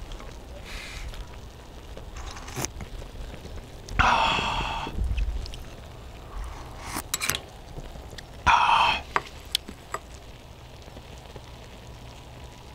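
Hot fish cake broth slurped from a small bowl: two loud slurps, about four seconds in and again about eight and a half seconds in, with a few short clicks in between.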